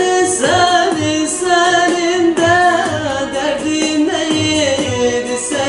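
A woman singing a Turkish folk song, the melody wavering and ornamented, over a backing track with a steady low beat.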